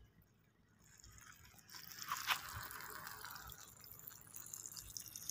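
Water trickling softly from a drip-irrigation emitter into sand, with a few light crackles about two seconds in.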